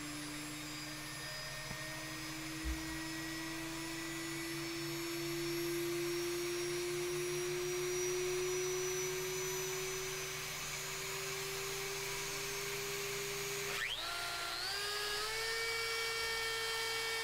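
DeWalt compact router's motor whining steadily, its pitch creeping slowly upward as its speed dial is turned up. About fourteen seconds in, a quick rising whine climbs in steps to a higher, steadier whine.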